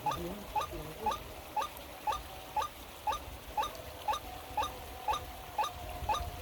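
A bird call: a short, rising chirp repeated very evenly about twice a second, with a faint held tone beneath it from about two seconds in.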